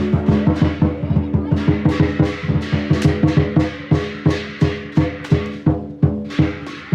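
Music of rapid, evenly spaced drum strikes, about four or five a second, over steady held low tones.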